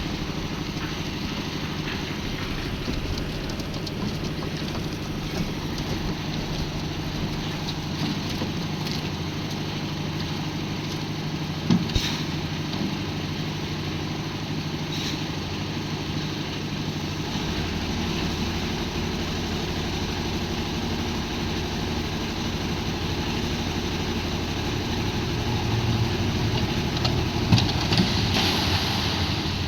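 Engine of a concrete mixer machine running steadily, with a sharp knock about twelve seconds in and a louder, clattering stretch near the end.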